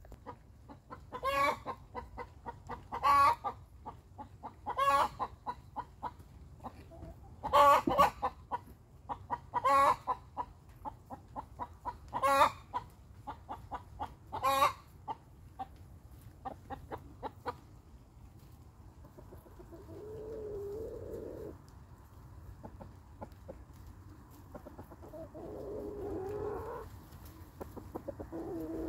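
Hen cackling: runs of quick, soft clucks broken by a loud squawk about every two seconds, the egg song hens give around laying. In the second half it dies away to a few lower, softer calls from the flock.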